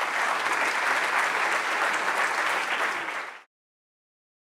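Audience applauding steadily, the clapping cut off abruptly about three and a half seconds in.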